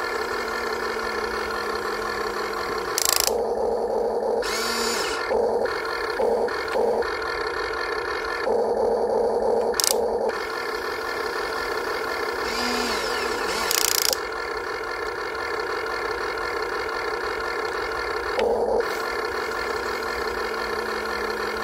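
Remote-control model excavator's motors running with a steady whine, rising in brief louder surges every few seconds as it works, with short slides in pitch.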